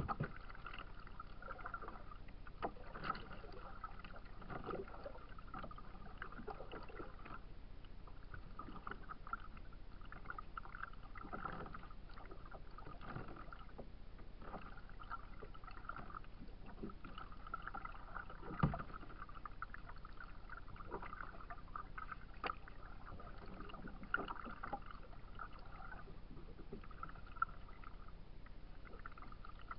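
Choppy lake water lapping and slapping against a plastic kayak hull, with scattered short knocks on the hull; the loudest knock comes about two-thirds of the way through.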